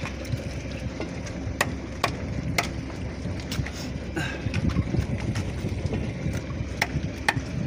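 A knife chopping needlefish on a round wooden block on a boat deck: sharp, single knocks at uneven intervals, roughly one a second. A steady low rumble runs underneath.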